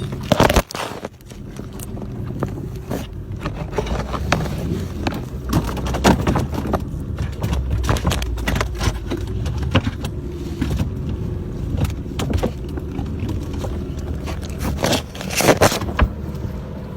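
A motor running steadily, with repeated knocks, clicks and scrapes close by, loudest about half a second in and again around fifteen seconds in.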